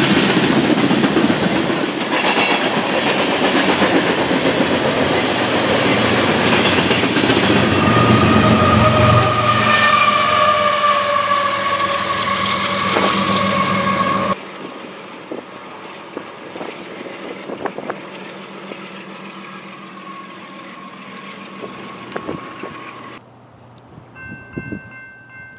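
Open-top hopper cars of a long unit freight train rolling past, the last cars going by. A high drawn-out squeal joins in for several seconds. The noise drops sharply about halfway through, leaving the train fading away.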